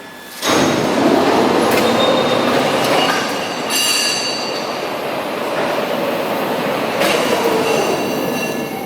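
Loud, steady mechanical rumbling with high, thin metallic squealing tones over it, starting abruptly about half a second in.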